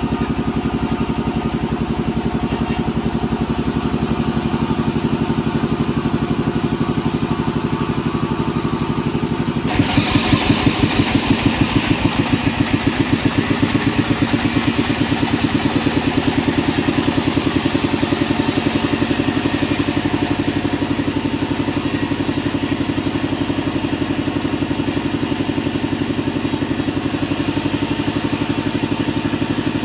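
Sawmill bandsaw running with a steady, rapid pulsing beat from its drive. About ten seconds in, a louder, harsher noise sets in and carries on as the blade cuts through a mahogany log.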